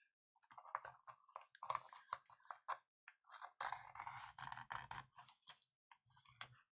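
Faint crackling and scraping as a pry tool works the adhesive holding a tablet's glued back cover, with a denser run of scraping about halfway through.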